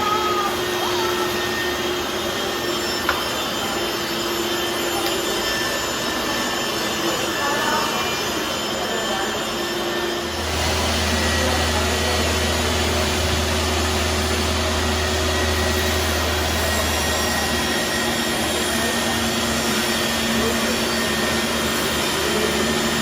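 Workshop power tool with an electric motor running steadily, a whooshing, vacuum-like noise. A deep hum joins it about ten seconds in and drops away about seven seconds later.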